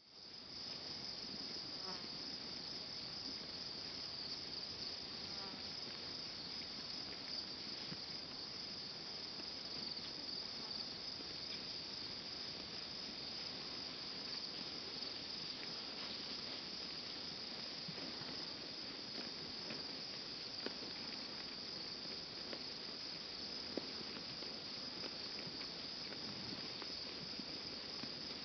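Steady high-pitched chorus of field insects such as crickets, unbroken throughout, with a few faint clicks.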